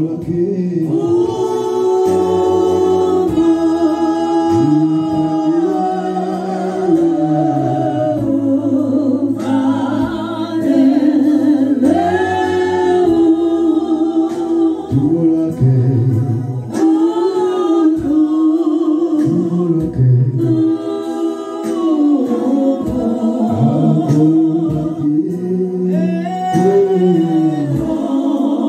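A congregation singing a gospel worship song together, with many voices holding long notes.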